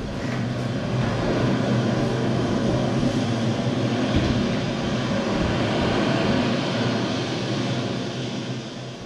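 A steady, low mechanical drone with a hiss over it, played as a stage sound effect. It swells in at the start, holds, and fades away near the end.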